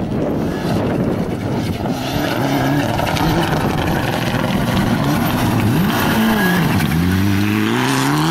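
Mitsubishi Lancer Evolution rally car's engine running hard on a gravel stage. Its pitch drops about six seconds in and then climbs steadily as the car accelerates past.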